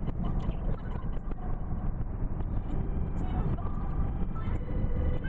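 Steady low road and engine rumble inside a moving car at road speed.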